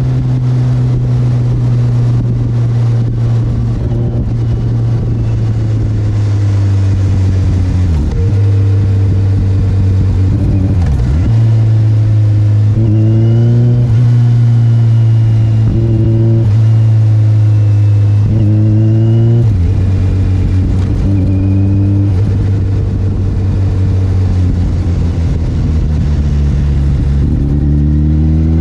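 Kawasaki Ninja 1000SX inline-four engine running on its stand through an aftermarket Black Widow carbon end can, with the standard catalyst still fitted. It runs steadily and is revved several times, the pitch rising and dropping back. The low end sounds deep and throaty.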